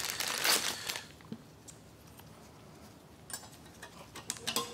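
A brief rustle for about the first second, then light metallic clicks as a new stainless brake pad clip is pushed onto a caliper bracket, a few near the end.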